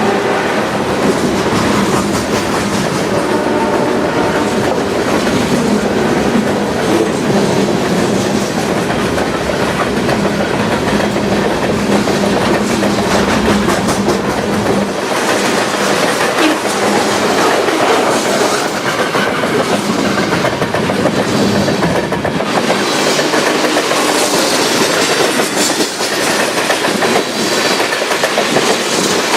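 Freight train rolling past at close range, with a steady clatter of wheels over the rails. A low drone runs under it through the first half and then drops away.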